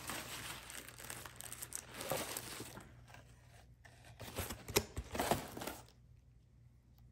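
Packaging crinkling and rustling as the next shaving soap is unwrapped and handled, louder about two seconds in and again around five seconds in. It stops about a second before the end.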